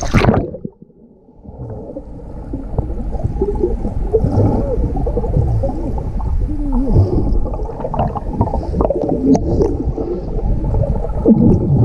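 Muffled underwater sound after the camera goes below the sea surface about a second in: air bubbles gurgling and rushing around a swimmer who has just dived in, with short sliding bubble chirps and the high sounds cut off.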